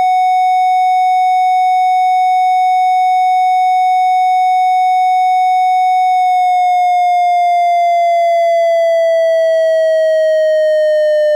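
Synthesized triangle-wave siren tone imitating an ASC digital electronic siren controller's Fire signal. A steady high tone is held for about six seconds, then slowly falls in pitch as the signal winds down.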